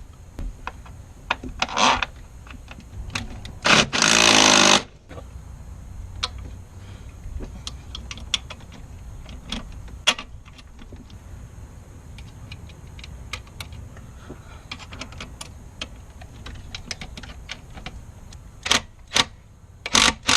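Hand-tool work on a car engine bay while fitting a dog bone engine mount: scattered metallic clicks and knocks, with a loud burst of a power tool lasting about a second, about four seconds in.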